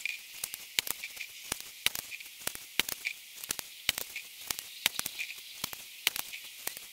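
Sped-up sound of a Weihrauch HW80 spring air rifle being cocked, loaded and fired through a chronograph. It is heard as a fast, irregular string of sharp clicks and snaps, several a second, over a thin hiss.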